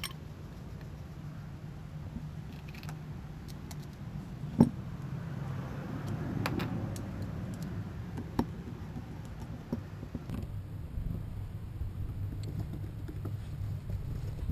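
A few sharp metal clicks and taps from handling and screwing together a Yamaha 90 outboard carburetor with a screwdriver, the loudest a little under five seconds in, over a steady low background rumble.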